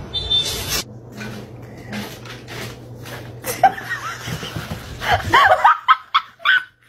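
A person laughing in the second half, with light clicks and taps before it.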